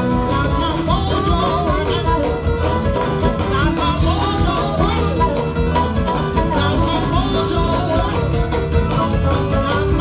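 Live blues band playing, with a harmonica cupped against a vocal microphone over keyboard and bass, and some singing.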